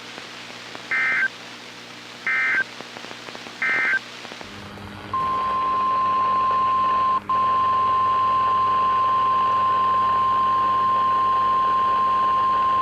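Emergency Alert System (SAME) end-of-message code: three short warbling data bursts about a second apart, closing the previous warning. About five seconds in, a steady single-pitch NOAA Weather Radio warning alarm tone starts and holds, with a momentary dropout a couple of seconds later.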